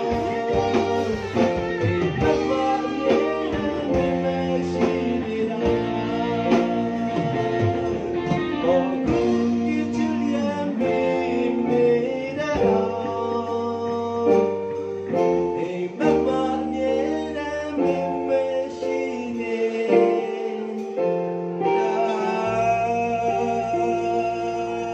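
Live band playing a pop song: electric guitar, bass guitar and drums, with a male lead vocal.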